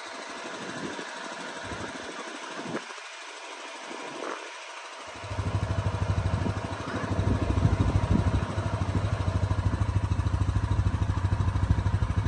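Quiet street noise, then about five seconds in a road vehicle's engine starts idling close by, a steady low rumble with an even fast pulse that continues.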